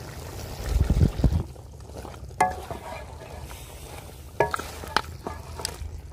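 A metal spoon stirring beef karahi in a large aluminium pot, clinking against the pot with a short ring several times in the second half, over steady sizzling. A brief low rumble comes about a second in.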